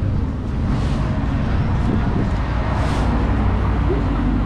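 Road vehicle noise: a steady low rumble, with a hissing swell about a second in and another near three seconds, like vehicles going by.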